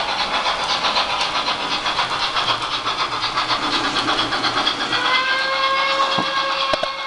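Model steam locomotive's sound decoder playing steam chuffs, about five a second. From about five seconds in, a long steam whistle chord sounds over them.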